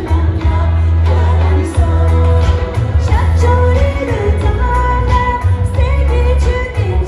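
Tibetan pop song performed live: a man and a woman singing a duet into microphones over music with a heavy bass and a steady beat, amplified through stage speakers.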